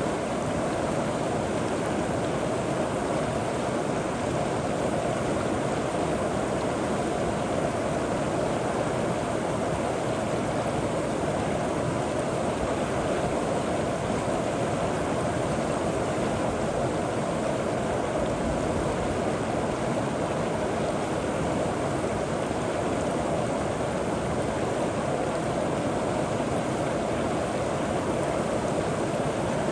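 River water flowing over rocks: a steady rushing with no breaks or changes.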